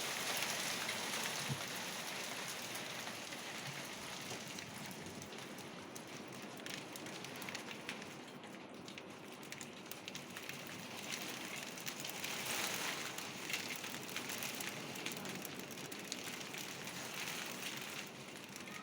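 Hail mixed with wind-driven snow hitting surfaces in a strong blizzard: a steady hiss full of fine ticks, swelling with a gust about two-thirds of the way through.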